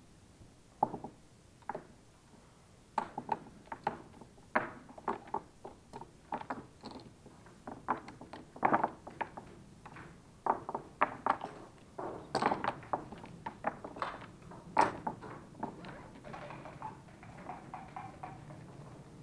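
Backgammon checkers and dice clacking on the board in irregular sharp clicks, some in quick clusters, as moves are played.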